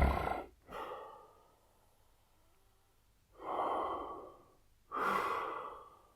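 Man snoring heavily: a loud snore dies away just after the start, then three shorter, noisy snoring breaths follow, separated by silent pauses.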